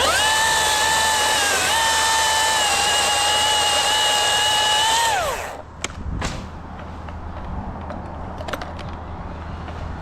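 Chainsaw revved up and held at high speed for about five seconds, dipping slightly as it bites, then let off so it winds down and stops. A couple of short knocks follow.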